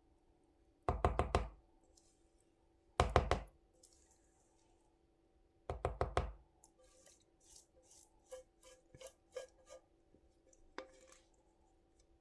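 Three short bouts of rapid knocking, a few quick knocks each, about two to three seconds apart, then lighter scattered taps and clicks: a utensil knocked against the mixing bowl while batter is scraped out into the dish.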